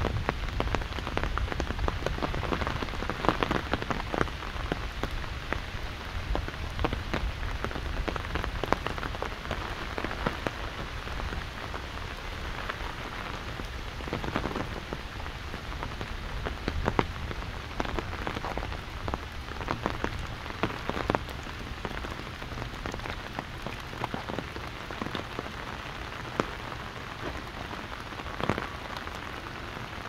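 Steady rain falling on an umbrella held overhead, with many sharp drop ticks scattered through it, over a low wind rumble on the microphones.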